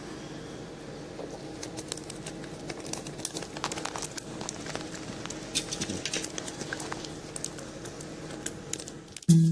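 Light, irregular clicks and rustles from hands handling fishing line and tackle at a spinning rod, over a low steady background hum. Acoustic guitar music comes in abruptly near the end.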